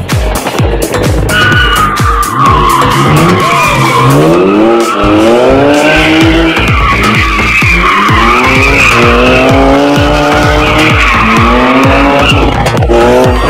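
A car drifting: its engine revs up and down repeatedly under hard throttle while its tyres squeal as they slide. Music with a steady beat plays underneath.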